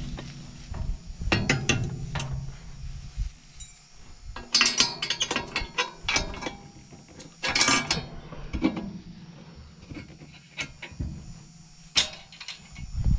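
Metal clinking and rattling in short clusters, loudest about four to five seconds in and again near eight seconds: a hitch pin being fitted to couple a lawn roller to the back of an ATV.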